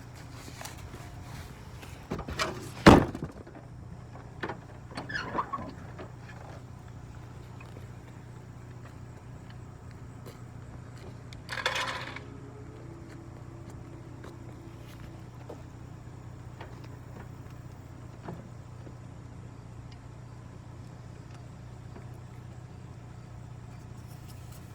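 Clanks and knocks of tools and a spare tire being handled for a roadside tire change, the loudest a sharp knock about three seconds in, with a short hiss around twelve seconds in, over a steady low hum.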